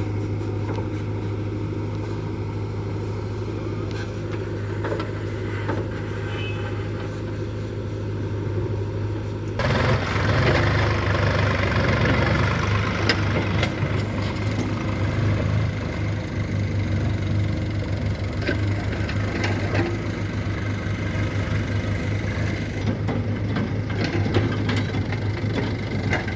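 Heavy diesel engine running steadily; about ten seconds in it suddenly gets louder and rougher, with scattered knocks over the running engine.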